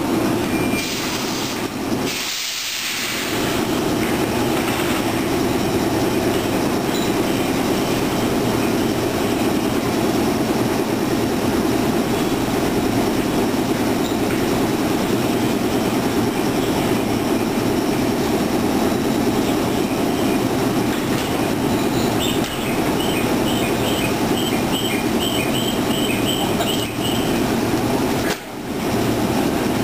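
Steady rumble of electric trains at a station platform. From about three quarters of the way in, a run of short high beeps repeats two or three times a second.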